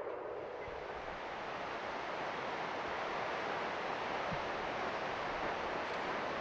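River rapids rushing: a steady, even rush of white water.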